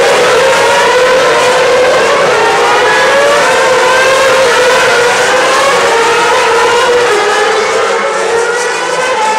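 Several 2010 Formula 1 cars' 2.4-litre V8 engines screaming at high revs, their notes overlapping and sliding up and down as the pack accelerates. The sound thins slightly near the end as the cars spread out.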